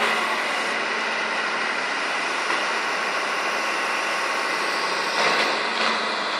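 Diesel engine of a 2007 Doosan excavator running steadily, with a few louder clattering knocks about five seconds in.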